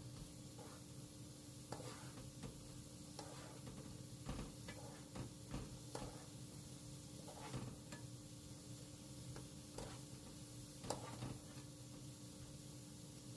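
Faint kitchen handling sounds: scattered light clicks and taps of utensils against cookware, over a steady low hum.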